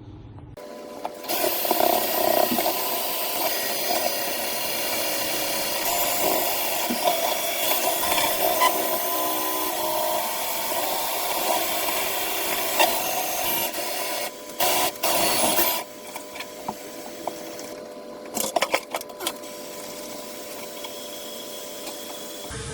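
An electric drain-cleaning machine runs with a steady motor whine as it drives its cable to clear a blocked toilet drain. It starts about a second in, briefly cuts in and out near 14 to 15 seconds, then drops to a quieter running level with scattered clicks and knocks.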